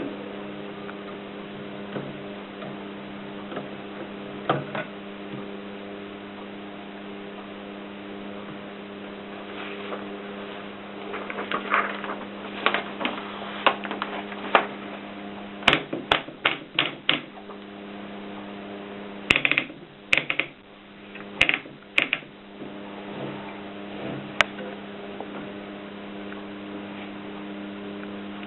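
AEG Mignon 4 index typewriter being worked: sharp mechanical clicks and clacks in irregular clusters, sparse for the first ten seconds and then coming thick and loud through the middle. A steady electrical hum runs underneath.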